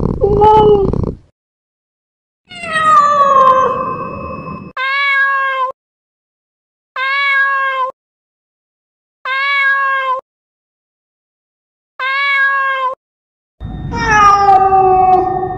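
Domestic cats meowing: a short meow at the start, then a long meow sliding down in pitch. Next come four short, identical, steady-pitched meows about every two and a half seconds, and another long falling meow near the end.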